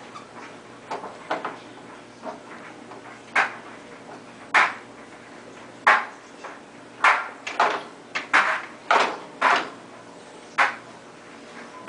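Dishes and cutlery clinking and knocking as they are handled in a dishwasher rack: a string of irregular sharp clinks, some with a brief ring, coming faster in the second half.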